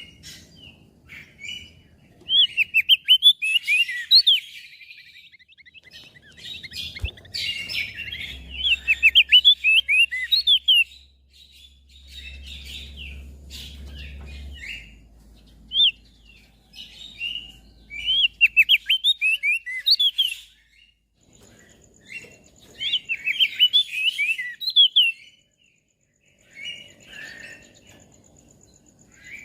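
Crested white-eye (opior jambul) singing in several bouts of quick, high chirping notes, with short pauses between the bouts.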